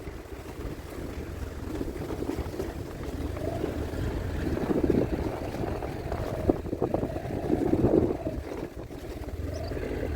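A motor vehicle's engine running steadily, with a low rumble that swells and eases a few times, and wind on the microphone.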